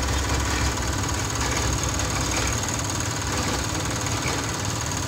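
An engine running steadily, with a low rumble that eases about halfway through.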